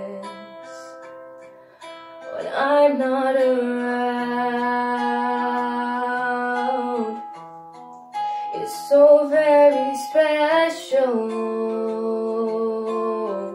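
Young female voice singing solo over a picked guitar accompaniment, holding two long notes, the second starting about eight seconds in.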